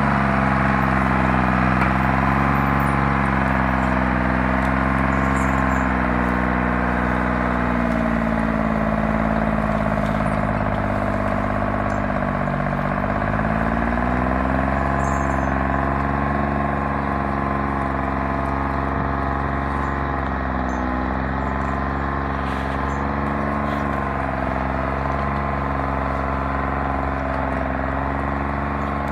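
Timberjack 225 skidder's diesel engine running as it drags a hitch of logs, its pitch wavering and sagging about halfway through before picking up again. It grows gradually fainter as the machine moves away.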